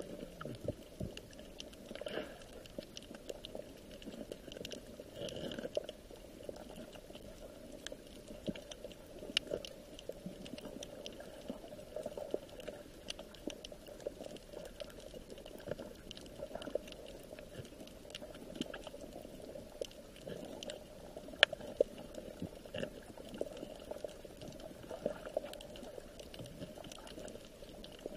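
Water bubbling and gurgling steadily, dotted with many small clicks and taps, with one sharper click about two-thirds of the way through.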